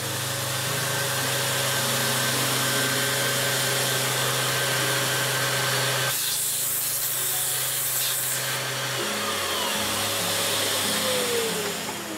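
Festool sander with a 120-grit disc running steadily, drawing its dust extraction, as wood samples are pressed against it; a brief high hiss comes in the middle. About nine seconds in, the motor's pitch falls away steadily as it winds down while the extraction noise carries on.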